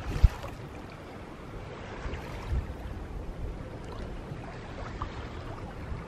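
Steady wind and water noise at a sailboat's bow, with a sharp knock just after the start and a softer thump about two and a half seconds in.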